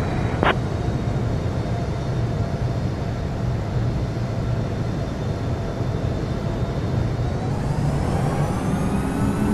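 Jet airliner engines rumbling steadily as the aircraft passes, with a whine of several tones that swells and bends in pitch during the last couple of seconds. A short click about half a second in.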